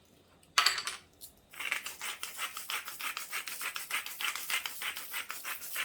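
Hand-turned seasoning grinder cranked over food: a short loud rasp about half a second in, then a steady run of fast scratchy crackling clicks as it is twisted to grind salt and pepper generously.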